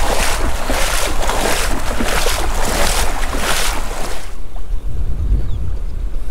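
Rhythmic splashing and swishing of shallow water, about two splashes a second, stopping about four seconds in. After that, low wind rumble on the microphone.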